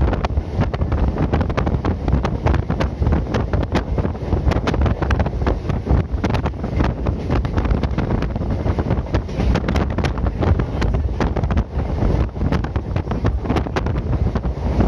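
Train running along the track: a steady low rumble with constant irregular rattling and clicking, and wind buffeting the microphone.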